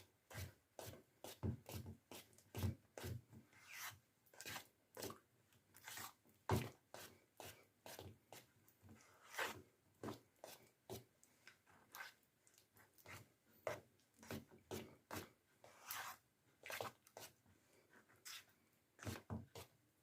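A thick batch of white PVA glue being stirred in a container with colouring mixed in: faint, irregular scraping and clicking of the stirrer against the container. The mix is heavy and hard to stir.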